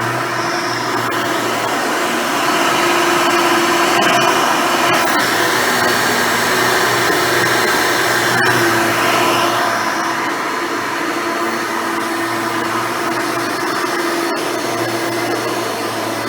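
Hoover Elite upright vacuum cleaner with a new-old-stock dual-row brush roll, running steadily while vacuuming, with a few sharp clicks.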